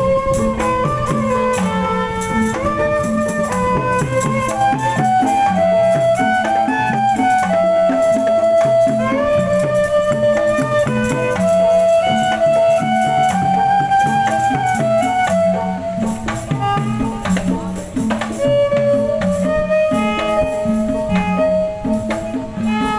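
Betawi traditional music playing continuously: drums and percussion beat a steady rhythm under a melody of held, stepping notes.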